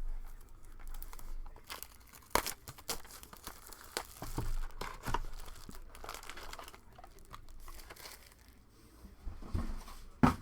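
Sealed trading card box packaging being torn open and crinkled, a run of irregular crackles with a few sharp snaps.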